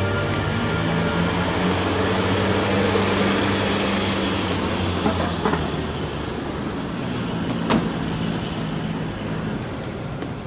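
Ambulance van's engine running as it drives in and pulls up, a steady low hum that fades away about eight seconds in. A single sharp click comes near the end.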